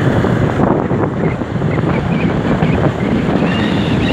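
Wind buffeting the microphone of a rider on a moving two-wheeler, a loud, steady rush of noise.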